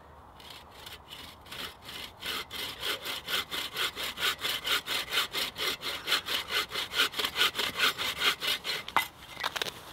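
Folding pruning saw cutting across a dead, partly rotten log, back-and-forth strokes that build from slow and quiet to a fast, even rhythm, then stop about nine seconds in.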